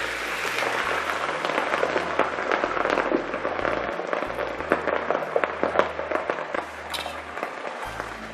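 Finely chopped grilled catfish deep-frying in a pot of hot oil: a loud, dense sizzle of crackles and pops as the water in the fish boils off and the flesh puffs up into fluffy, crisp catfish.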